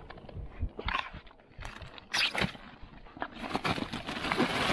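Handling noises from an insulated fish bag and plastic bags as a John Dory is laid inside: scattered knocks with a louder thump about two seconds in, then steady rustling from about three and a half seconds.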